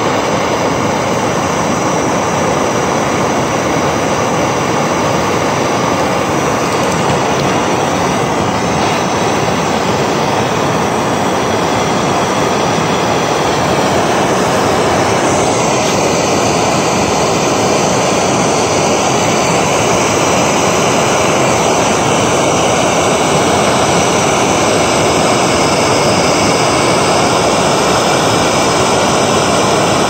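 Handheld gas torch burning with a steady rushing noise, its flame held against the base of a magnesium anode rod to heat it toward ignition. The tone shifts slightly about halfway through.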